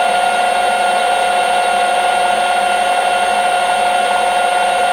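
Metal lathe running with its spindle turning, a steady whine over a constant mechanical hum.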